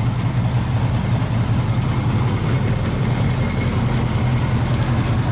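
1985 GMC 3/4-ton High Sierra pickup's V8 engine idling steadily on its monthly start-up run.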